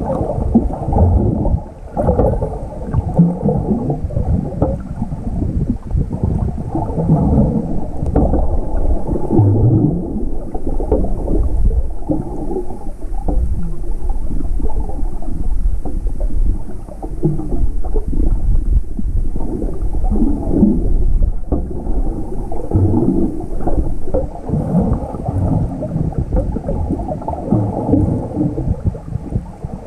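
Muffled rumbling and gurgling of water moving around a camera held in the sea.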